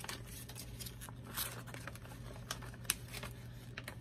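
Paper packaging insert being unfolded and handled: scattered crinkles and light clicks, with a longer rustle about a second and a half in and a sharp tick near three seconds.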